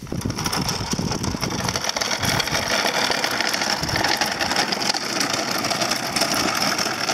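Small wooden dog wagon on spoked wooden wheels rolling over a rough gravelly road surface, a steady dense rattle and crunch that sets in as the cart starts moving.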